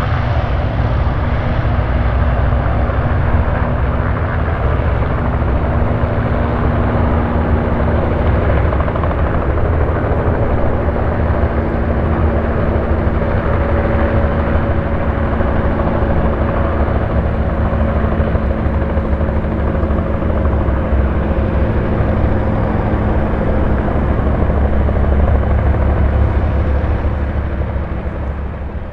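Boeing Stearman PT-13D Kaydet biplane's nine-cylinder Lycoming R-680 radial engine at full power, lifting off and climbing out. It makes a loud, steady drone.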